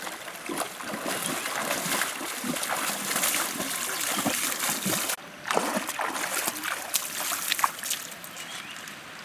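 Shallow river water splashing and sloshing as a person wades through it with a stick. The sound breaks off abruptly about five seconds in, then the splashing resumes.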